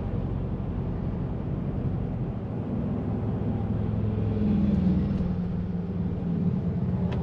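Low, steady rumble of a motor vehicle engine, its pitch rising slightly about four to five seconds in.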